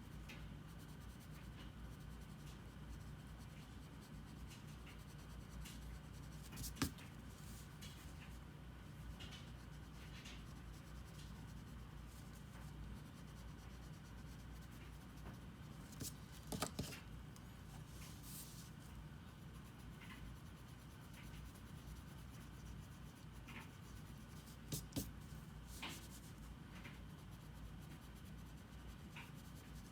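Faint scratching of a drawing tool stroking across paper, with a few sharp taps or clicks scattered through, over a steady low hum.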